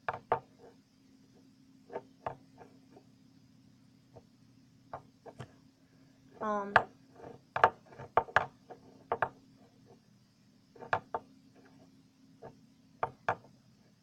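Scattered sharp clicks and taps from handling things, irregular and a few each second, with a brief pitched hum about six and a half seconds in. A faint steady low hum runs underneath.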